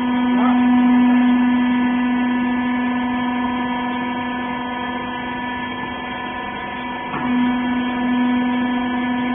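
Hydraulic baler's power unit, an electric motor driving the hydraulic pump, running with a steady hum. The hum grows louder again just after a faint click about seven seconds in.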